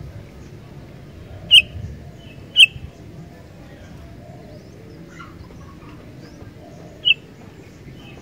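Sooty-headed bulbul (kutilang) calling: two short, sharp notes about a second apart, then another near the end, with fainter chirps between them over a steady low background rumble.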